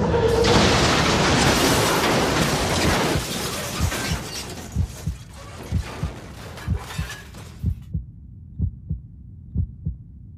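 A sudden loud rush of crash-like noise, fading over a few seconds, with a heartbeat sound effect thumping under it. When the rest of the sound cuts out, the heartbeat goes on alone in doubled beats about once a second.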